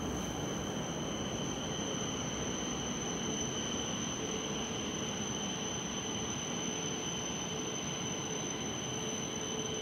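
Cabin noise inside an E5 series Shinkansen car as the train slows to a stop at the platform: a steady rumble with a thin, steady high whine over it. A faint lower hum joins about four seconds in.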